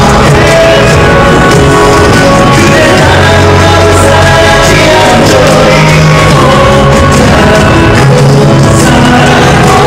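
Loud live pop performance by a male singer over an arena's sound system, with band accompaniment and some crowd noise mixed in.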